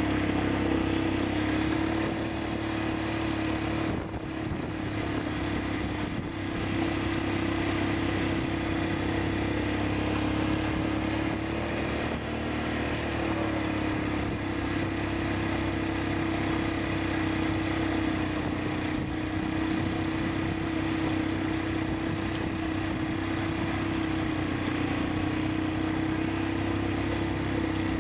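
ATV (quad bike) engine running steadily at riding speed, its pitch drifting slightly up and down, over a constant rushing noise.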